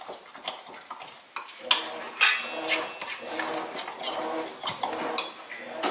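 A utensil stirring cornbread batter in a mixing bowl, clinking and scraping against the bowl, with a few sharp clinks standing out.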